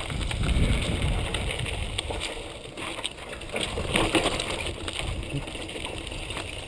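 Mountain bike descending a dirt singletrack at speed: steady tyre noise on dirt and loose rock with wind rumble on the microphone, and many short rattles and knocks from the bike over rough ground, a cluster of them about four seconds in.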